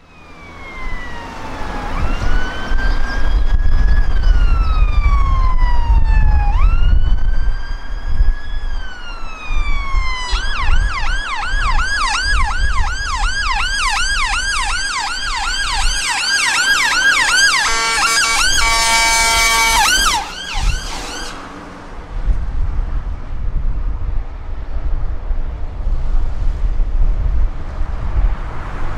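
Ambulance siren on a Mercedes Sprinter, first sounding a slow wail, then switching about ten seconds in to a fast yelp of roughly two or three sweeps a second. Near the middle it changes to a couple of seconds of bullhorn, a steady buzzy horn tone, then cuts off suddenly. Road traffic noise follows.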